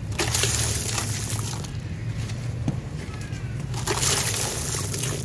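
Crumbled dry sand-cement grit poured by hand into a bowl of muddy water: a hissing patter of grains falling into the water, in two pours, the second about four seconds in.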